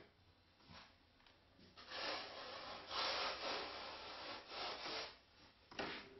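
A hand rubbing across the carved foam surface of a fuselage master plug in a few long, faint, scratchy strokes, starting about two seconds in.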